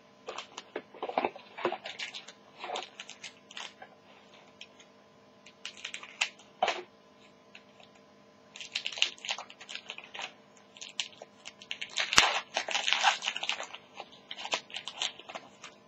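Crinkling and tearing of a foil trading-card pack wrapper being opened by hand, in crackly bursts with short pauses between, and one sharp snap about twelve seconds in.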